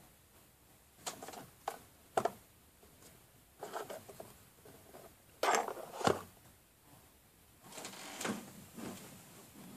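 Small piston engine built from a refrigerator compressor being turned over by hand with its head off: metallic clicks and short scrapes in four irregular bursts, loudest about halfway through.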